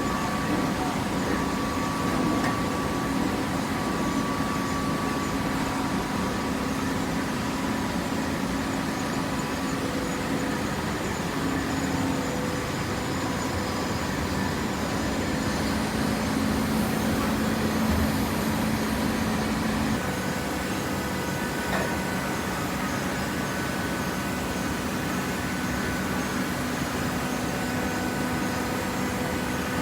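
Waste paper baling machine running: a steady mechanical hum with several held tones, which shift about two-thirds of the way through.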